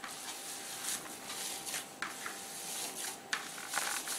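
Hands rubbing and kneading crumbly fresh chhena in a plastic bowl: soft, irregular rustling swishes as the curd is pressed and smeared against the bowl.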